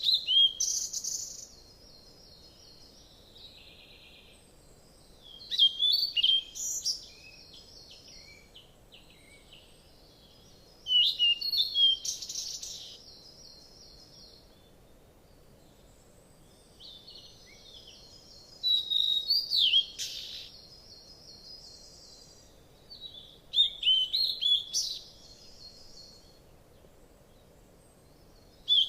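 A songbird singing short phrases of clear whistles followed by a rapid trill, repeated about every five to six seconds, over a faint steady hiss.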